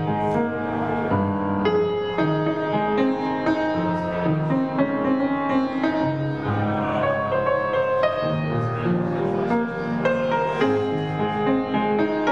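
Solo piano music: a slow piece of held notes and chords played without a break.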